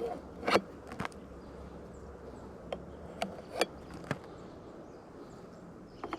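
Faint buzzing of honeybees at an open hive feeder, with about six sharp clicks and taps from the feeder being handled in the first four seconds.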